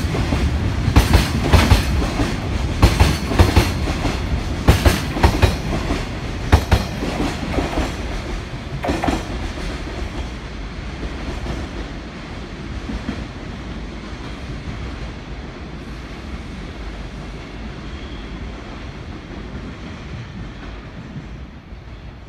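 Container freight train wagons clattering over the rail joints as the last wagons pass, in rhythmic wheel clicks. The clicks stop about nine seconds in and the rumble of the departing train fades away.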